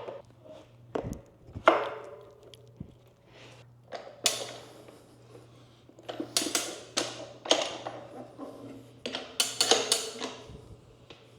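Irregular metal clanks, scrapes and rubbing as a stiff motorcycle tire's second bead is levered onto the rim with a Rabaconda tire changer and drop-center tools. The strokes come in short groups with brief ringing and cluster mostly in the second half.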